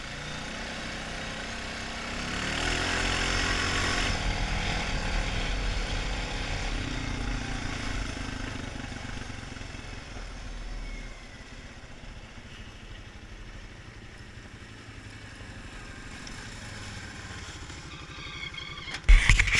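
Honda 450 ATV's single-cylinder four-stroke engine running under way, climbing in pitch as it speeds up about two seconds in, then easing to a low, quieter run as the quad slows and pulls up. Loud knocks and rubbing near the end.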